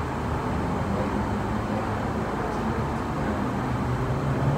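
Steady rumble and hum of a Roosevelt Island Tramway aerial cabin riding on its cable, heard from inside the cabin.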